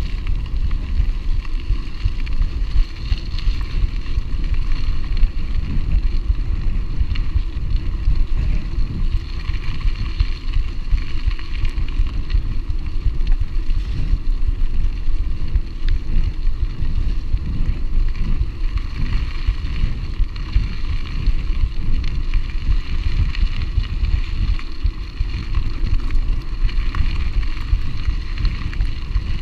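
Wind buffeting the microphone of a camera riding on a moving mountain bike, a steady rumble with the hiss of the bike's tyres rolling over a dirt track.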